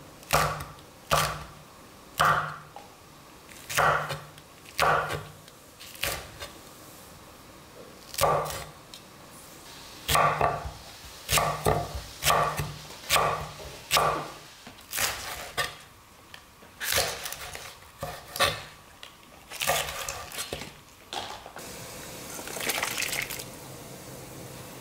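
A large chef's knife chopping green chili peppers and green onion on a wooden cutting board: sharp knocks of the blade striking the board, about one a second, sometimes two or three in quick succession. A short hiss follows near the end.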